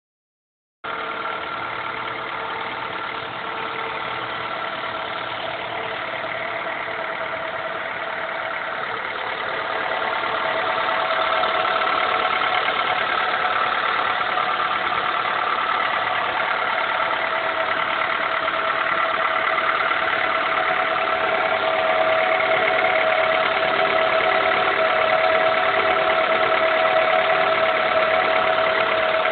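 Honda Accord F23A1 2.3-litre four-cylinder engine running near idle on a cold start with a knocking noise, which the owner takes for either the rocker arms/camshaft or a knocking rod. It gets louder about ten seconds in.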